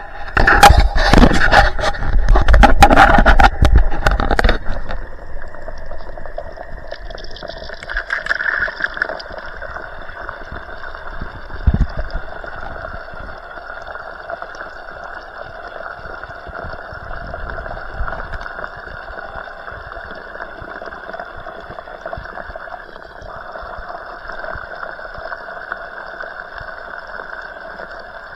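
Water escaping through a leak in a vinyl pool liner, picked up by a leak-detection listening microphone as a steady rushing noise. For the first four seconds or so there are loud knocks and rubbing from the microphone being handled.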